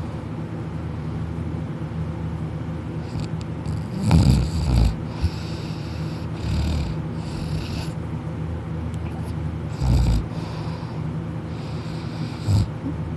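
A sleeping person snoring loudly, lying on the back with the mouth open: several rough snores a few seconds apart over a steady low hum.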